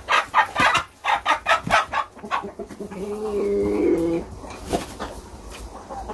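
Chickens clucking in quick short calls, about four a second, then one low held call lasting about a second.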